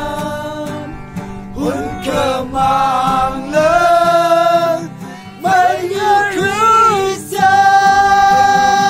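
A group of men and women singing a song together to an acoustic guitar, holding long notes in phrases with short breaks between them.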